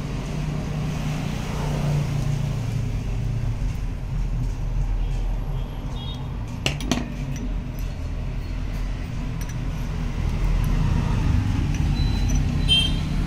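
Steady low rumble of passing traffic, with a few light metallic clinks and rings from small horn parts being handled, about halfway through and again near the end.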